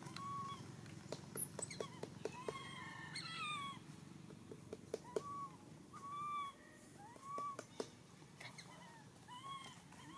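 Infant macaque crying: a series of short calls, each rising and falling in pitch, repeated every second or so, with a few sharp clicks in the first half.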